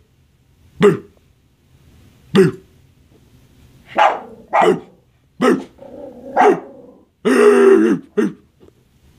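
Small scruffy dog barking in short, separate barks, about seven of them, coming closer together in the middle, with one longer, loud drawn-out sound about three-quarters of the way through.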